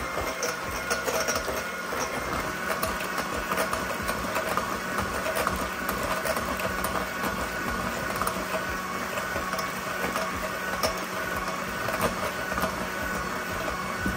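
Electric hand mixer running steadily, its wire beaters whipping eggs and sugar in a glass bowl, with scattered light clicks.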